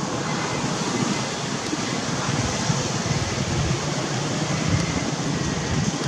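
Steady rushing noise with wind buffeting the microphone.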